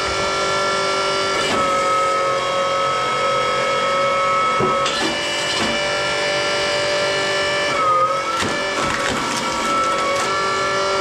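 Electric motor and hydraulic pump of a homemade log splitter whining steadily. The pitch sags briefly about eight seconds in as the ram loads up against a log, with a few sharp knocks and cracks from the wood being split.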